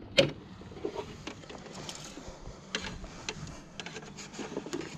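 Handling noise from a scavenged electrical cable being picked up and worked by hand: a sharp click just after the start, then scattered lighter clicks and rubbing.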